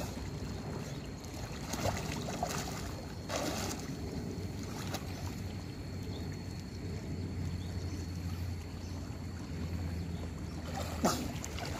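Steady wind and sea-water noise with a low hum that grows a little stronger in the second half, and a few faint brief splashes in the first half.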